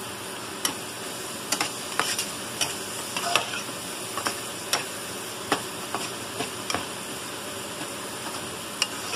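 A metal slotted spatula scraping and knocking against a nonstick frying pan in irregular clicks, over a steady sizzle of onions and ground spices frying in oil.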